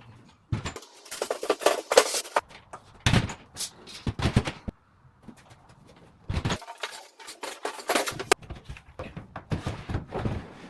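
Irregular knocks, thuds and scraping clatter of hands-on handling work, in clusters with short pauses in between.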